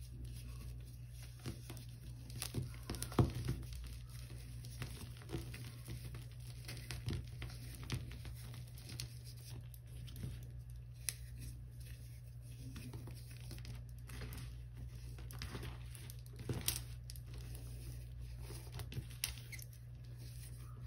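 Chunks of Comet cleanser powder crumbled and crushed by hand in a tub, crumbs and powder trickling back onto the heap. Soft, continual crumbling with scattered louder crunches, the loudest about three seconds in and again about seventeen seconds in.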